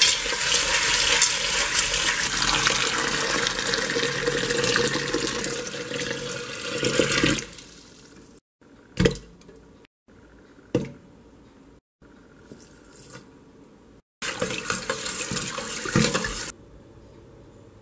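Tap water running into a stainless steel pot of dry pinto beans as they are rinsed, stopping about seven seconds in. After that come a few single knocks and another couple of seconds of running water.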